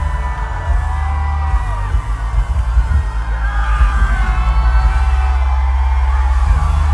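Loud live pop music over a concert sound system, with heavy bass, and high voices singing and whooping over it.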